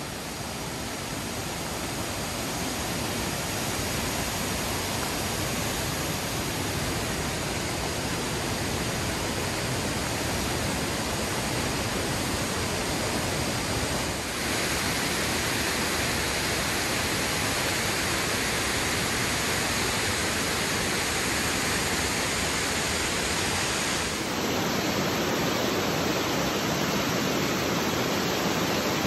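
Amicalola Falls' waterfall rushing in a steady, dense roar of water. Its character shifts abruptly about halfway through and again near the end.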